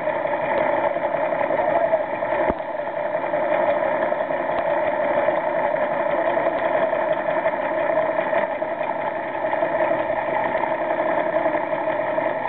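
Boat engine running steadily at idle, heard underwater as a muffled, even drone of several tones, with one short click about two and a half seconds in.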